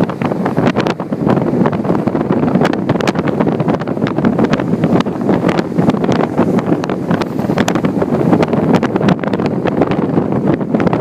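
Strong wind blasting across the microphone: a loud, steady rush broken by constant crackles and pops.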